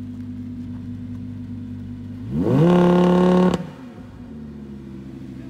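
Audi R8's V10 engine idling, then revved sharply about two seconds in, held at high revs for about a second, and let fall back to idle.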